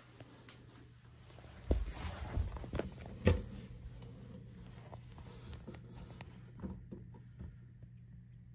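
Handling noise from a handheld camera being moved close around a porcelain toilet: rubbing and scraping with a few sharp knocks, the loudest about three seconds in, over a steady low hum.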